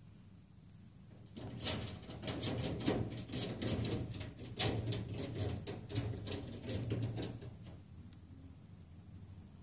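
Bearded dragon's claws scratching and clicking on the mesh screen lid as it crawls along it upside down: an irregular run of sharp clicks and rustles starting about a second and a half in and dying away near the end, over a low steady hum.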